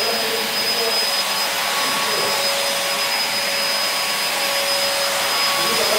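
Steam hissing steadily from a steam-room steam outlet, a loud even hiss with a faint steady whine above it.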